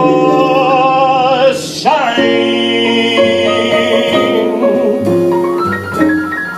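Male jazz vocalist holding a long note with vibrato over piano, bass and drums, then the band sustaining chords while the piano plays a run of single notes near the end.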